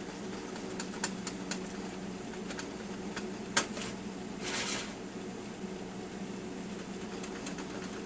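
Table knife cutting through a pie in a foil pie tin: a few soft clicks, one sharper tap about three and a half seconds in, and a short scrape a second later, over a steady low hum.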